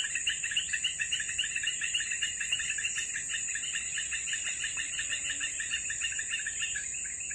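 Insect chorus: a steady high-pitched drone with a fast run of chirps, about five a second, that grows fainter over the last few seconds.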